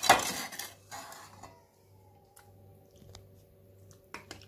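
A loud scraping rustle right at the start, then scattered light clicks and taps of a metal spoon in a baking dish as minced meat sauce is spread over pasta.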